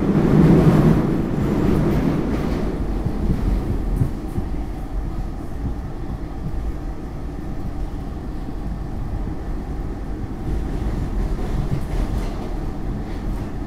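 SEPTA Market-Frankford Line train heard from inside the car while under way: a steady rumble and rattle of wheels on the track, loudest in the first couple of seconds, with a few light clicks later on.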